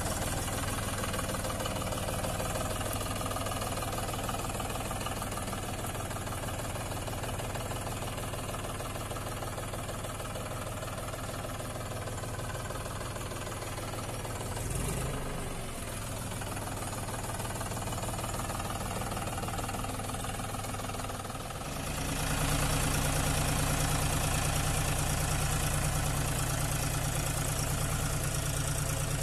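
John Deere 5105 tractor's three-cylinder diesel engine running steadily while the tractor is driven. It becomes louder about two-thirds of the way through.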